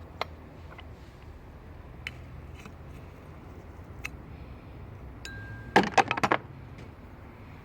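Scattered light metallic clicks, then a quick run of clinks about six seconds in: loose metal pieces of a collapsed AC compressor pulley bearing being handled. The bearing has lost some of its balls.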